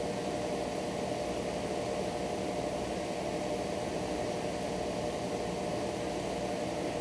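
A steady mechanical hum over an even hiss, unchanging throughout.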